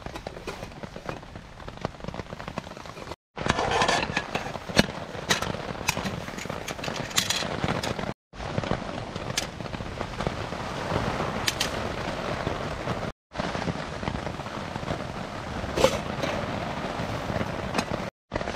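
Steady rain pattering on a tarp overhead, with clinks and taps of aluminium cook pots, lid and kettle being fitted together and handled. The sound cuts out briefly four times.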